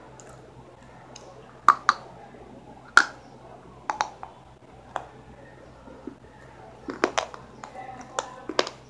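Close-up eating sounds: a dozen or so sharp, irregular crunching clicks and mouth smacks as a small piece of food is bitten and chewed.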